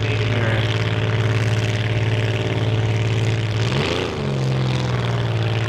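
Demolition derby compact car's engine running at high, steady revs, with a quick rise and fall in pitch about four seconds in, then holding at a slightly higher pitch.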